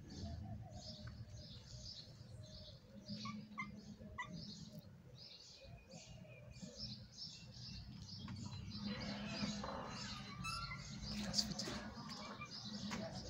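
Small birds chirping steadily, about two short chirps a second, over a low background hum. About nine seconds in there is a couple of seconds of rustling and scuffing.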